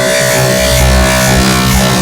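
Loud, dense electronic MIDI music from a 'dark MIDI' Android ringtone, many synth notes sounding at once over a heavy, steady bass.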